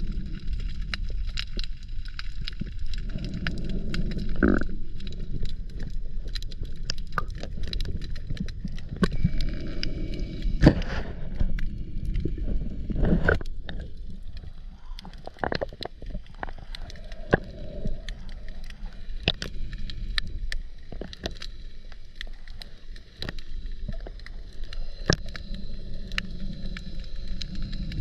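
Underwater sound through a camera's waterproof housing: a steady, muffled low rumble of water with many scattered sharp clicks and crackles.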